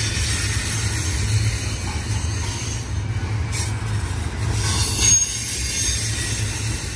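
Freight train cars rolling past with a steady low rumble, wheels squealing thinly and high on the rails.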